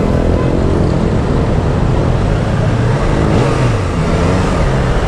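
Motorcycle engine running at low speed in city traffic, its pitch dipping and rising a little after the middle. A steady hiss comes in about three seconds in, over the traffic noise.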